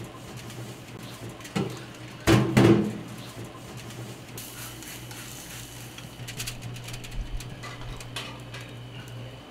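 Kitchen sounds at a charcoal grill: a steady low hum, a short loud clatter about two and a half seconds in, and scattered light knocks and rustling.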